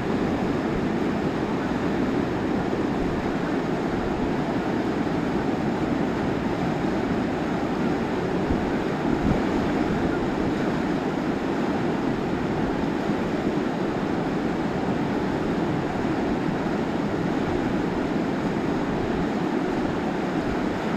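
Steady rushing wind noise on the microphone with uneven low buffeting, as while riding a bike along.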